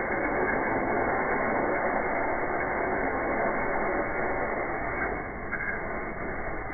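Ice-shaving machine shaving a block of ice into a tub: a steady, dull, rasping noise that eases slightly about five seconds in.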